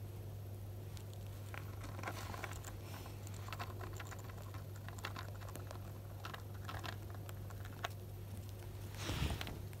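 Djungarian hamster nibbling a crunchy Jagariko potato-stick snack: quick, crisp little crunches in clusters, with a louder scratchy burst near the end.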